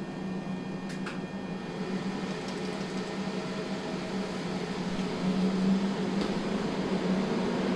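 Fans of a fiber laser engraving setup running steadily, a low hum with an airy hiss, while the laser sits idle with only its aiming beam on. A couple of faint clicks.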